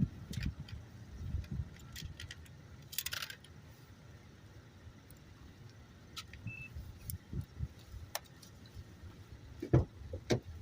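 Scattered light clicks and rattles, like something being handled close to the microphone. There is a low rumble at the start, a brief hissy scrape about three seconds in, and two low thumps near the end. No siren is sounding.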